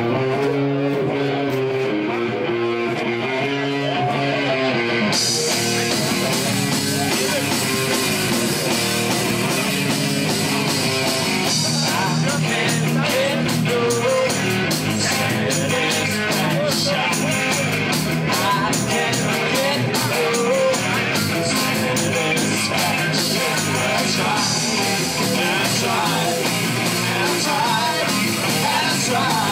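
Rock and roll music with guitar and singing. About five seconds in, the sound changes abruptly to a fuller, brighter band mix.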